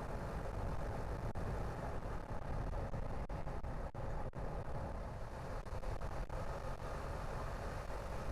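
A car driving on a road: a steady low rumble of tyre and engine noise, with a few faint clicks through the middle.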